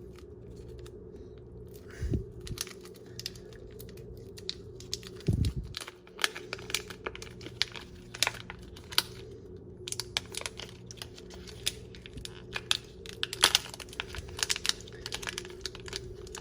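Packaging being torn open and handled: crinkling and tearing of a wrapper with many small clicks and crackles, growing busier in the second half, and two dull thumps about 2 and 5 seconds in, over a faint steady hum.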